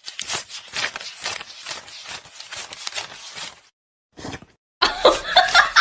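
Paper banknotes being flicked and counted by hand: a quick, irregular run of crisp rustles and snaps that stops after about three and a half seconds. After a short pause comes one brief rustle, then a louder run of short repeated sounds begins near the end.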